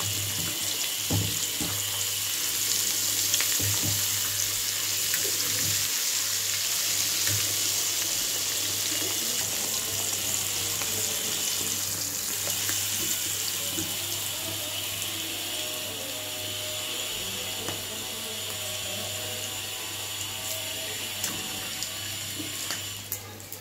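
Rava-coated pomfret frying in hot oil in an iron kadai: a steady sizzle, with a few clicks of steel tongs against the pan in the first seconds. The sizzle stops suddenly near the end as the fish is lifted out.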